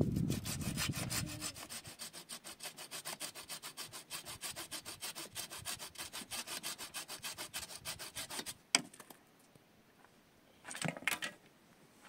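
A hand-held blade sawing back and forth through a thin wooden stick of a stick-built door, in quick, even strokes. The sawing stops about three-quarters of the way in with one sharp knock, and a brief clatter of sticks follows near the end.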